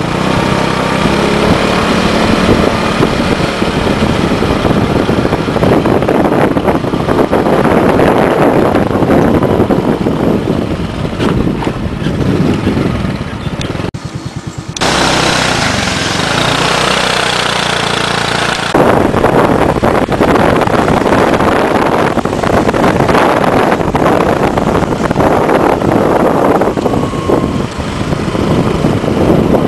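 A moving vehicle's steady engine and road noise, loud throughout, with a sudden break and change in the sound about fourteen seconds in.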